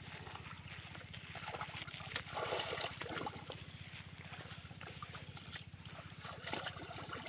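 A low, steady engine drone made of rapid, even pulses, with fainter irregular sounds loudest around two to three seconds in.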